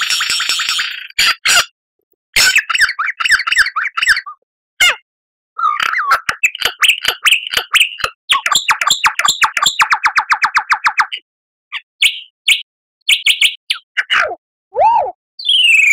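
Lyrebird singing a varied string of phrases: a dense buzzy trill, then rapid repeated notes and clicks, a fast even trill, and near the end arching, falling whistles, with short breaks between phrases.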